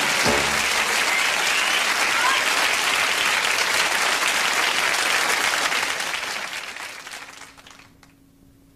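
Studio audience applauding, fading out over the last two seconds or so. The closing theme tune stops about half a second in.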